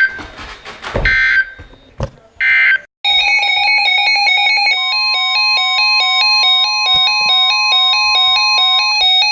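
Three short bursts of Emergency Alert System end-of-message data tones, the harsh warbling digital squawk that closes an alert. About three seconds in, an electronic melody of buzzy square-wave notes stepping up and down starts and keeps going.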